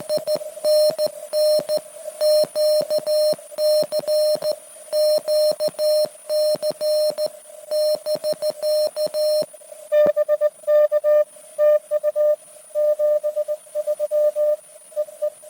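Morse code (CW) from a (tr)uSDX transceiver: a single tone of about 600 Hz keyed on and off in dots and dashes, each element starting with a sharp click. The keying pauses about nine and a half seconds in and resumes from about ten seconds in, with a softer tone and fewer clicks.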